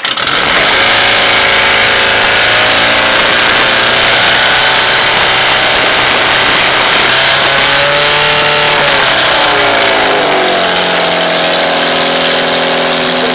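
Portable fire pump's petrol engine running flat out, loud and steady as it drives water through the attack hoses to the jets; its note wavers and shifts to a new steady pitch about ten seconds in.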